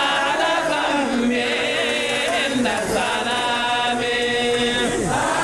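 Men's voices chanting together in long, sliding held notes.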